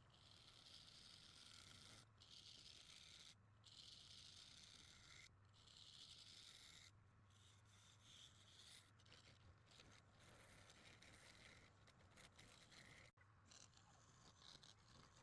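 Faint scraping of a turning tool cutting into wood spinning on a lathe, in passes of a second or two with short breaks between them, over a low steady hum.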